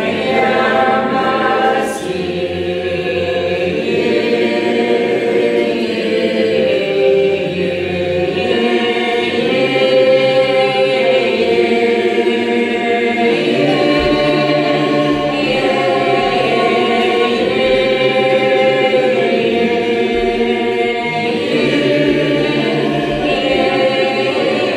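Doukhobor choir singing a psalm a cappella, in slow, long-held notes that shift gradually from one pitch to the next.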